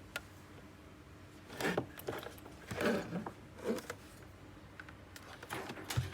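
Handling noises from a USB sound card and its cable being plugged into a laptop: a click, then a few short scrapes and rustles.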